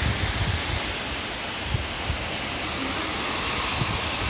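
Heavy rain falling steadily on a flooded street, an even hiss with irregular low rumbles underneath.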